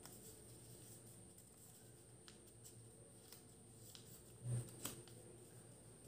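Very faint rustling and creasing of a sheet of origami paper being folded and pressed flat by hand, with a few light clicks and a short low thump about four and a half seconds in.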